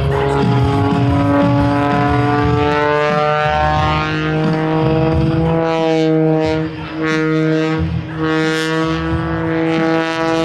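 A 400-horsepower modified Pitts aerobatic biplane's engine and propeller, flying a routine, with a steady pitched drone that slides slowly down in pitch and then climbs back up as the plane manoeuvres.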